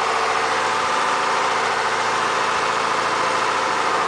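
Fishing boat's engine running steadily, with a fast even pulsing.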